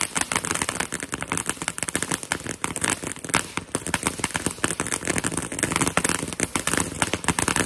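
Ground fountain firework spraying sparks and crackling: a dense, rapid stream of small sharp pops.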